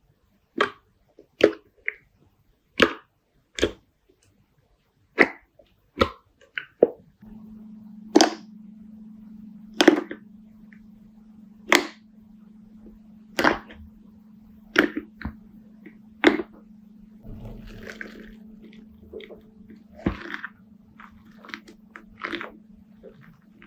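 Slime being squeezed and pressed by hand, giving sharp clicking pops about once a second. A steady low hum joins in about seven seconds in.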